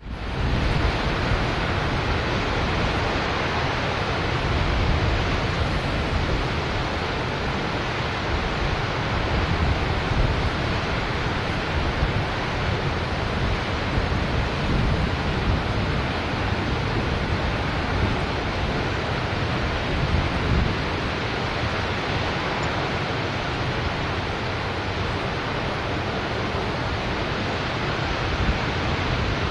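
The Pozo de los Humos waterfall in heavy flow: a loud, steady rush of falling water with a deep, uneven low rumble.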